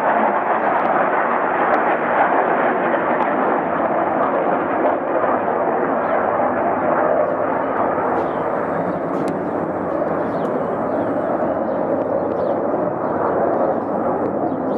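Mirage 2000 fighter jets' engines roaring as the jets climb away on a go-around, a steady rushing noise that eases slightly toward the end.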